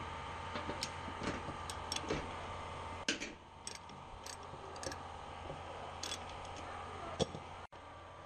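Irregular clicks and light knocks of a socket tool and trim fasteners being worked on a car's front fender and wheel-arch liner. A steady hum runs for the first three seconds and stops abruptly.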